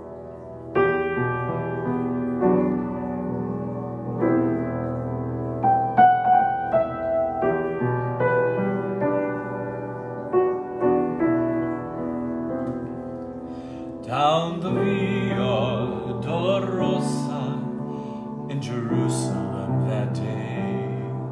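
Slow solo grand piano introduction of sustained chords and a simple melody, then a man starts singing over the piano about two-thirds of the way in.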